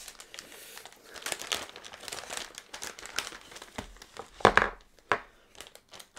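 Clear plastic zip-lock bags of small parts crinkling as they are handled and sorted, with a louder crinkle about four and a half seconds in.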